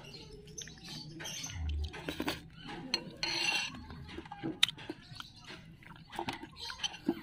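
Close mouth sounds of someone chewing and smacking while eating, with scattered light clicks of a metal spoon against a ceramic bowl.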